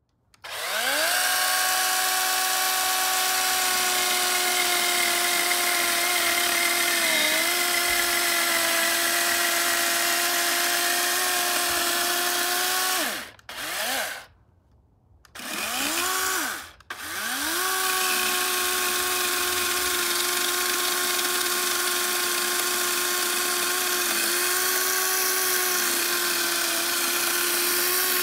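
DeWalt DCCS620 20-volt brushless battery chainsaw cutting a wooden post: a steady electric motor whine that rises in pitch as it spins up and sags slightly when the chain bites. About halfway through it stops, spins up twice more briefly with short gaps, then runs steadily again.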